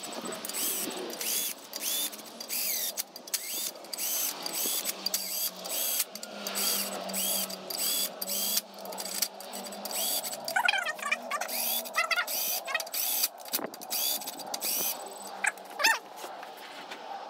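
Ratchet wrench clicking in repeated strokes, about two a second, tightening the crankshaft main bearing cap bolts of a Saab B207 engine by torque and then by angle, with a few short squeaks.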